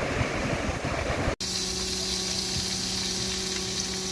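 Wind and surf noise rushing on the microphone, cut off suddenly about a second and a half in; then a steady high hiss with a low electrical hum.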